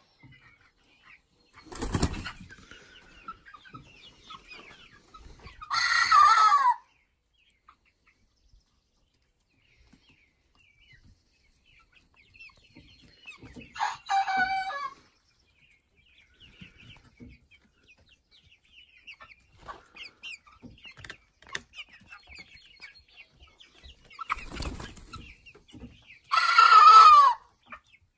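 Two-month-old cockerels, an Ameraucana and a Black Copper Marans, giving their first crows: three short crows of about a second each, the loudest about six seconds in and near the end. Between them come two short bursts of wing flapping and faint clucking from the flock.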